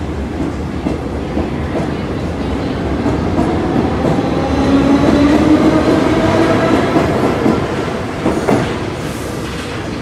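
Paris Metro train running past a platform: a dense rumble of wheels on rail with clickety-clack, swelling to its loudest midway and then easing off. Whining tones glide in pitch through the middle, and there is a single sharp clank near the end.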